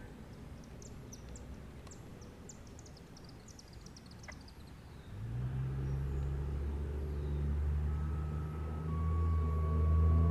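ACA Penetrator 10 single-phase, dual-tone outdoor warning siren starting up about halfway through, its low tones slowly rising in pitch and growing louder as it winds up for an Alert signal. Before it starts, small birds chirp faintly over a low background rumble.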